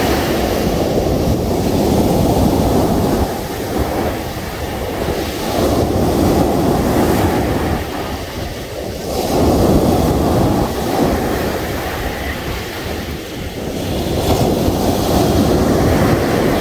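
Rough sea: big waves breaking and washing up the shore in a loud roar that swells and eases every few seconds, with wind buffeting the microphone.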